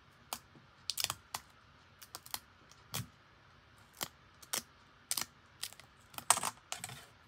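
Fingers and nails tapping and clicking on a phone's glass screen and a plastic screen-protector alignment frame while a dust-removal sticker is handled: irregular light clicks, with a louder crackly cluster near the end.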